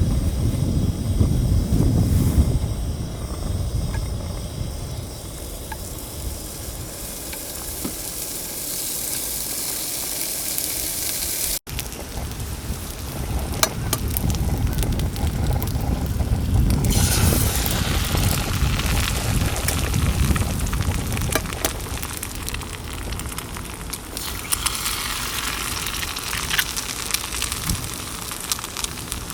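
Homemade bacon sizzling as it fries in a pan on a camping gas stove, the sizzle swelling after the middle, with a few light clicks. A low rumble is loudest at the start and returns partway through.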